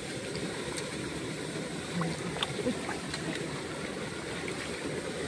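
Steady sloshing and splashing of shallow muddy water as hands grope through it among flattened grass, feeling for fish.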